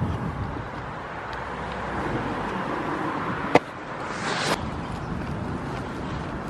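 Camera handling noise: rubbing and rustling against the microphone, with one sharp knock about three and a half seconds in, followed by half a second of hissing rubbing against jacket fabric.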